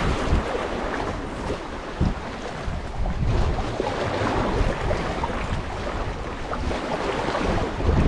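Wind buffeting the microphone over sea waves washing and splashing against concrete breakwater blocks.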